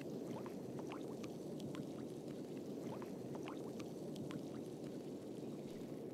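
Underwater ambience: a steady low watery rumble with small bubbling blips, several a second.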